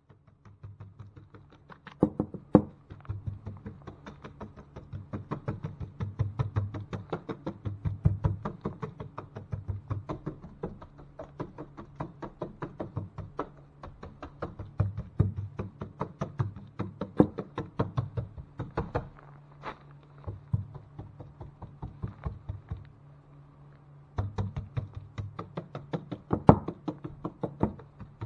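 Rapid, irregular knocking and tapping, several knocks a second, over a low steady hum, easing off briefly a little past the middle.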